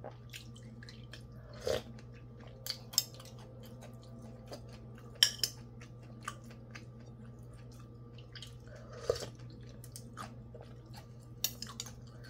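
A person chewing and eating sayur asem (tamarind vegetable soup) from a bowl with a spoon, with scattered light clicks of the spoon on the bowl and a few louder short mouth and dish sounds, over a steady low hum.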